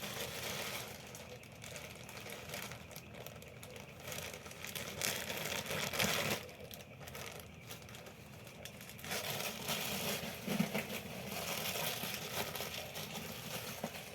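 Plastic bread bag crinkling and rustling as it is handled, in irregular bursts.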